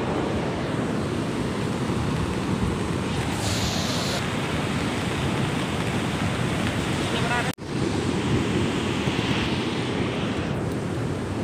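Steady rushing of a swollen mountain stream in flood, mixed with wind buffeting the microphone. The sound drops out for an instant a little past halfway.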